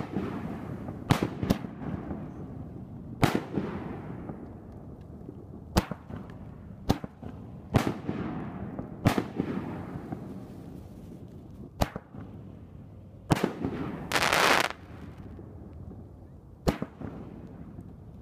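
A volley of 60-gram canister aerial firework shells being fired and bursting: about a dozen sharp bangs at uneven intervals, each trailing off in a rumbling echo. About fourteen seconds in, one loud noisy burst lasts most of a second.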